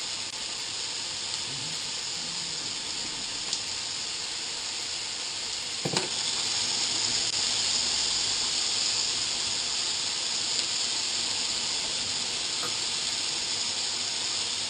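Strips of meat sizzling as they fry in oil in a frying pan, stirred with a utensil. There is a single knock about six seconds in, after which the sizzle grows a little louder.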